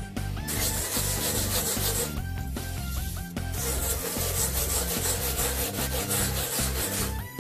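Stainless-steel scrubber pad rubbing cleaning paste over baked-on grease on oven door glass: a rasping scrub in two long stretches with a short break between, over background music.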